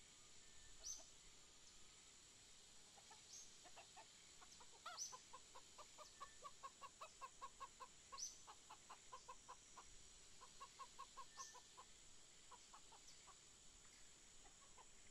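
Chicken clucking faintly in a quick run of clucks, about five a second, from about five seconds in until about twelve seconds, with a few short high bird chirps and a steady high hiss behind.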